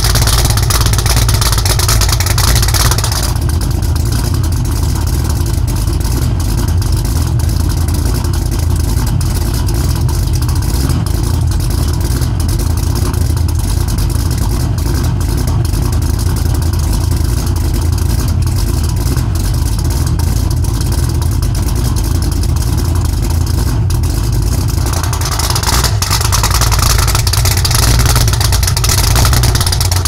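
Cadillac CTS-V's V8 running at a steady cold-start idle through Valvetronic valved mufflers. With the valves open it has a deep rumble with a raspy top. About three seconds in the valves close and the sound turns quieter and duller, and a few seconds before the end they open again and the rasp comes back.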